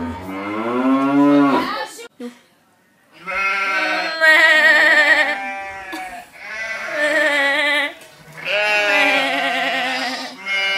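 Boys' voices making long, wavering bleat-like calls in imitation of sheep: one rising-then-falling call at the start, a short pause, then three long held calls with a quick tremble in the pitch.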